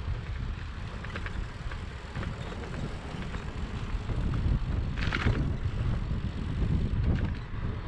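Wind buffeting the microphone of a camera on a moving bicycle: an uneven low rumble with faint clicks, and a brief hiss about five seconds in.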